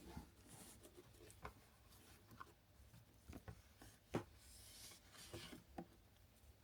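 Faint handling noises: soft rubbing and scattered light clicks and taps as the headphones and their accessories are handled, with a sharper tap about four seconds in.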